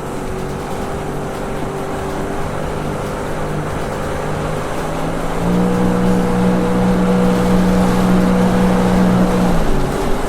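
Sea-Doo jet ski engine running steadily, then revving up about halfway through to a louder, higher, steady pitch that holds for about four seconds before dropping back near the end.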